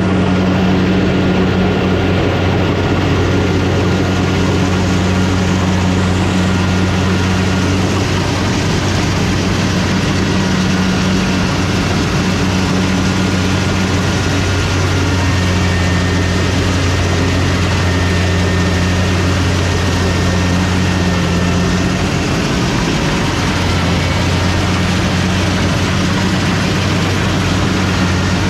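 Farm machine's diesel engine running steadily under load, a loud, even low hum that holds its pitch throughout.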